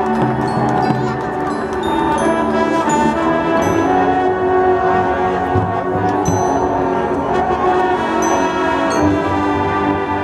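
High school marching band playing its field show: the brass section with sousaphones holds long, loud chords, with short high ringing notes sounding over them.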